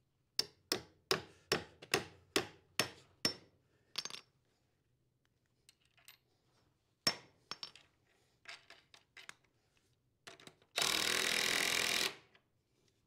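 A hammer strikes about nine times, roughly two a second, driving a concrete anchor bolt through a wooden wall bottom plate into the floor. Light metal clinks follow as the washer and nut go on. Near the end a cordless impact driver runs for about a second and a half, tightening the nut down.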